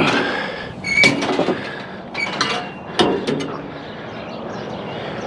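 Pieces of scrap metal being handled, clanking and scraping against each other: a short metallic squeal right at the start, a ringing clang about a second in, then several more knocks.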